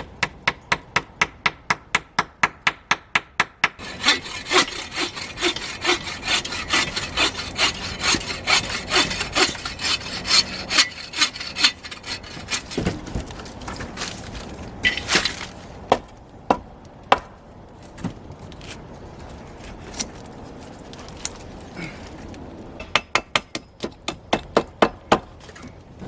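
Saw cutting through wood in quick back-and-forth strokes, about five a second, in spells: a fast run at the start, a longer stretch of sawing to about halfway, then a few scattered knocks, and another short run of strokes near the end.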